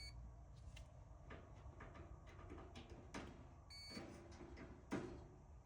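A multimeter's continuity tester gives a short, high steady beep about four seconds in, showing that the dryer part under test has continuity. Faint clicks and rustles of the probes being handled come and go around it.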